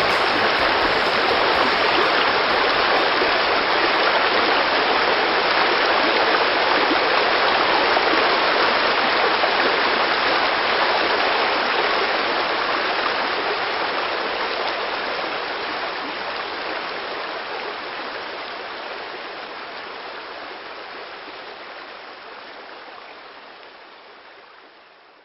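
Running water of a stream, a steady rushing that fades out slowly over the second half.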